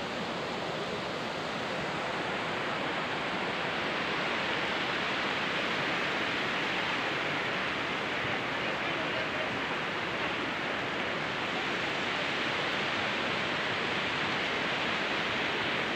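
Rushing white water of the Panjkora River rapids, a steady, dense hiss that grows a little louder a few seconds in.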